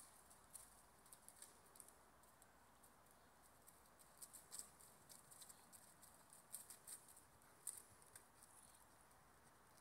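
Near silence: faint outdoor background hiss with scattered, irregular faint high-pitched ticks.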